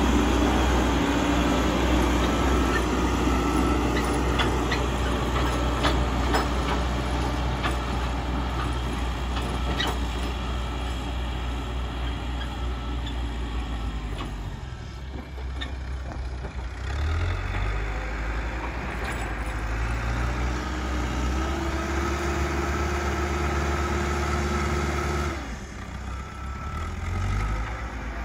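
Caterpillar 434E backhoe loader's diesel engine running under load while the front bucket pushes earth, with scattered sharp clicks and knocks in the first part. The engine note drops about halfway, picks up again, and dips briefly once more near the end.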